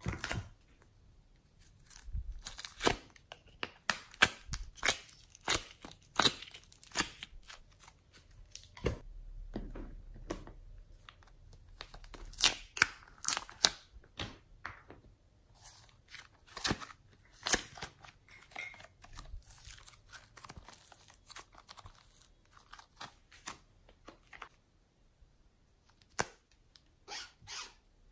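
Hands squeezing soft foam clay out of small plastic cups and pressing it onto slime, giving irregular sharp clicks, pops and crackles in clusters, with a quieter stretch shortly before the end.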